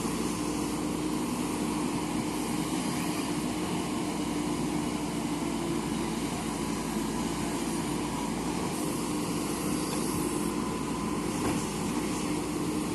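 JCB backhoe loader's diesel engine running steadily, a constant hum with no changes in pitch.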